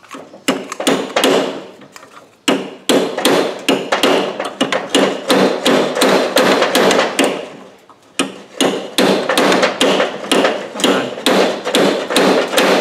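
Hammer blows on the rusted-on rear axle bearing of a Razor Ground Force go-kart, fast and repeated at about four strikes a second, in three runs with short pauses about two and a half and eight seconds in. The bearing is seized onto the axle with rust and won't come off.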